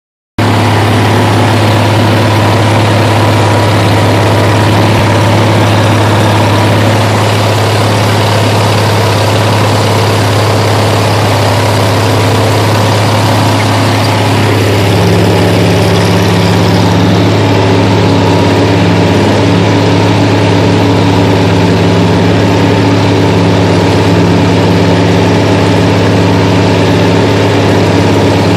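Oliver 1800 tractor's six-cylinder engine running loud and steady under load while pulling a four-bottom moldboard plow, heard close up from the operator's seat. The engine note shifts slightly about halfway through.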